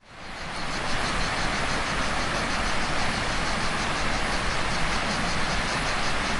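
River water rushing steadily, with cicadas buzzing high above it in a fast, pulsing rhythm; the sound fades in over the first second.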